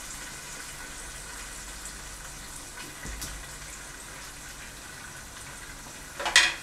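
Soaked rice sizzling in hot oil with cumin and whole spices in a pot, a steady low hiss. A brief louder sound comes near the end.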